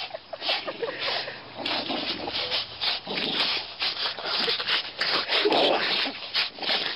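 Two dogs wrestling and tugging at a toy: a rough, irregular scuffling and rubbing noise in quick bursts.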